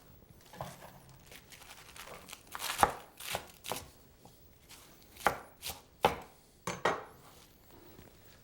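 Knife chopping a head of butterhead lettuce on a cutting board: separate irregular strokes, the loudest clustered a few seconds in and again near the end.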